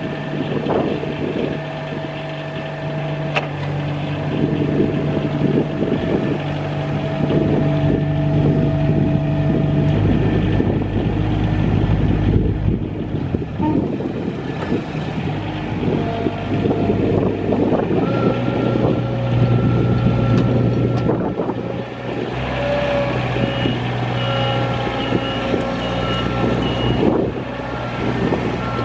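Lombardini diesel engine of a Palfinger Crayler truck-mounted forklift running as the machine drives and manoeuvres, its engine speed shifting up and down a few times. Near the end a reversing alarm beeps about five times.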